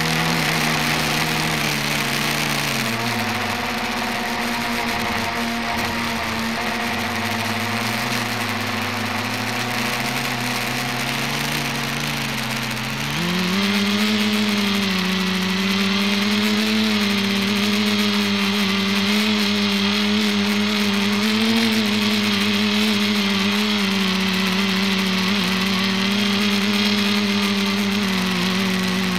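Motors and propellers of the ETFD2 flying-disc multicopter whirring, heard close up from its onboard camera. The pitch dips and wanders with the throttle, then about thirteen seconds in it rises sharply and gets louder, holding steadier after that.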